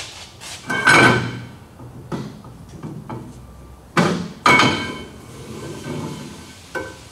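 Rear axle shaft of a Dodge Ram 1500 being slid out of the axle housing, clanking metal on metal with a brief ringing after each knock. The loudest clanks come about a second in and again around four seconds in, with lighter knocks between.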